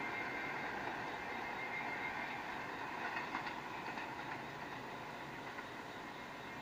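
New York City subway train running on the tracks, a steady rumble with a faint whine, fading slowly as it pulls away, with a few wheel clacks over the rail joints about three to four seconds in.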